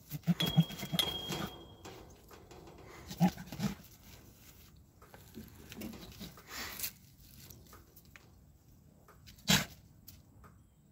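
Buck goat courting does, giving a quick run of low grunts about a second in and another short grunt a little after three seconds, then one short loud sound near the end.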